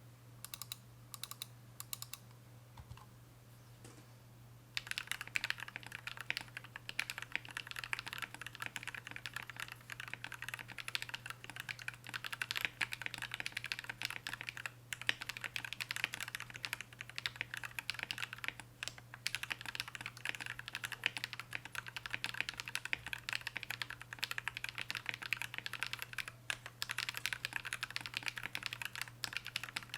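Typing on a custom mechanical keyboard: a KBD8x MkII polycarbonate case with a full brass plate, lubed and filmed Gateron Ink Black V2 linear switches and PBT keycaps. A few separate keystrokes, then fast continuous typing from about five seconds in.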